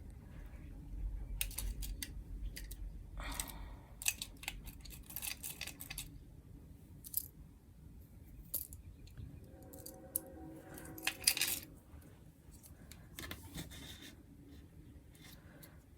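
Small plastic artificial nail tips clicking and rattling as they are handled and sorted, with scattered sharp clicks and rustling, the loudest clicks about eleven seconds in.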